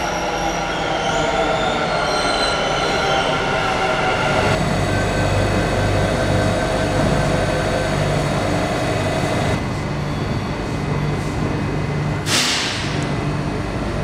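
Bengaluru Namma Metro train running through an underground station: a steady rumble under several high whining tones. A short burst of hiss comes about twelve seconds in.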